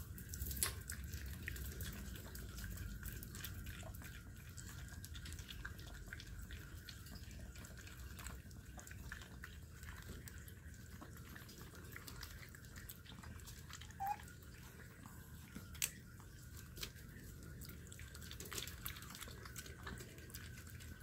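Maltese dogs licking and chewing a soft, ripe persimmon held in a hand: faint wet smacking and small clicks, with a few sharper clicks in the second half.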